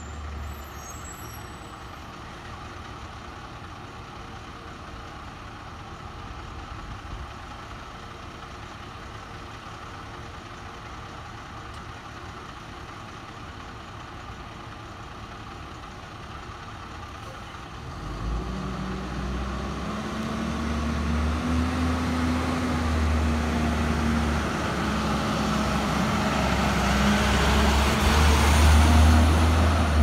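2003 Blue Bird International 3800 school bus's diesel engine, a low steady rumble while the bus waits down the street. About two-thirds of the way in it pulls off and comes closer, the engine note rising and dropping as it accelerates. It grows louder until it passes close near the end.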